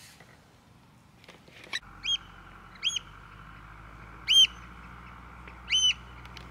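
A bird flying overhead gives short, high calls, each rising and then falling in pitch. There are four calls about a second apart, and the last two are doubled.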